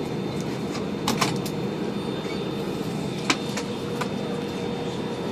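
Steady airliner cabin hum from the ventilation system, with a few sharp clicks about a second in, just after three seconds and at four seconds.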